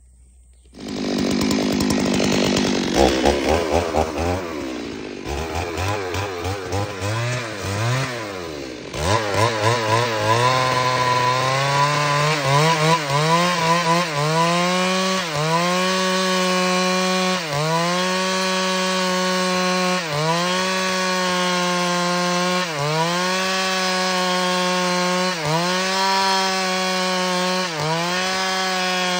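Stihl MS 382 two-stroke chainsaw ripping a log lengthwise into a thin plank. Its engine speed rises and falls unevenly for the first several seconds, then holds high and steady, the pitch dipping briefly about every two to three seconds.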